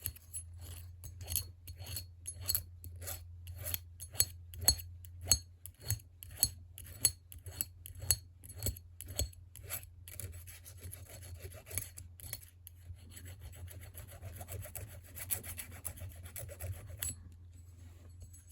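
Small hand file rasping back and forth on the flattened tip of a lock-pick wire, roughening it so it grips the lock's levers. Quick strokes come about two a second, then turn softer and less distinct about halfway through.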